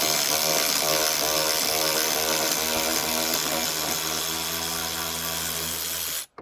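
Ridgid R866011B 18V brushless 3/8" cordless ratchet running in reverse, backing a lag screw out of a 2x4: a steady whir of motor and gears that cuts off suddenly about six seconds in, when the trigger is released.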